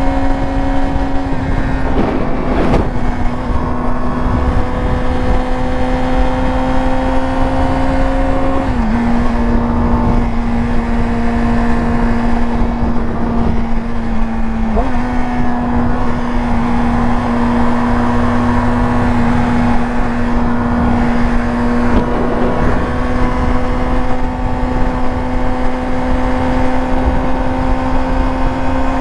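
Yamaha R6's inline-four engine running steadily at high revs while riding, with rushing wind noise underneath. The engine note drops slightly about nine seconds in and rises again about six seconds later.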